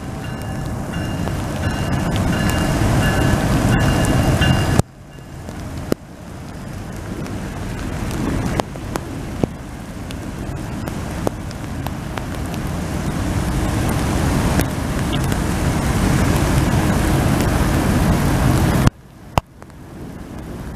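A train horn's chord sounds over the low rumble of a train, then cuts off abruptly about five seconds in. A steady rushing of heavy rain follows and grows louder, with scattered sharp ticks, before another abrupt cut near the end.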